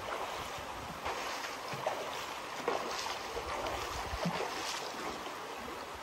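Splashing from a person swimming in a rock pool, a few irregular splashes from the strokes over a steady rush of water from a small waterfall.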